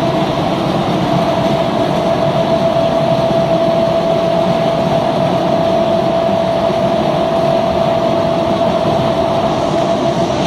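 Ring-die organic fertilizer granulator running steadily: a loud, continuous mechanical rumble with a steady whine over it.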